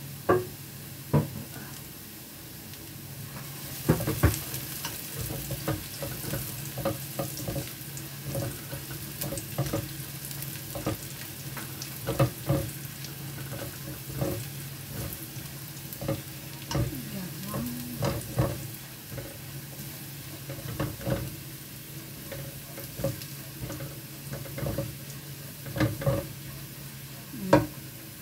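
Minced garlic sizzling in oil in a nonstick wok, stirred with a silicone spatula that knocks and scrapes against the pan in irregular clicks. The sizzle grows louder about four seconds in, once the garlic is well into the hot oil.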